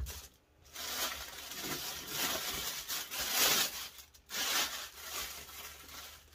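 Thin plastic packaging bag crinkling and rustling as it is pulled off a tumbler heat press, in two long stretches with a brief pause about four seconds in.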